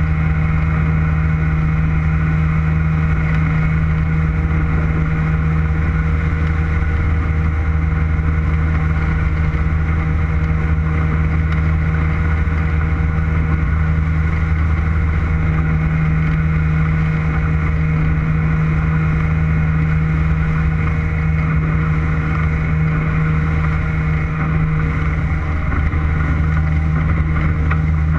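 Motorboat engine running at a steady speed, a constant low drone.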